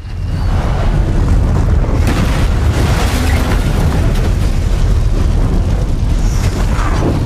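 Film destruction sound effect: a long, heavy low rumble with a crackle of debris over it. It starts abruptly and holds steady throughout.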